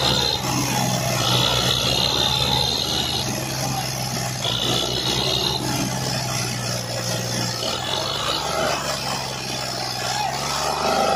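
Diesel tractor engines running steadily under load: an orange Fiat 480 tractor pulling on a Belarus tractor whose loaded trailer is stuck in mud. A high hiss comes and goes about every couple of seconds, and the engine note shifts near the end.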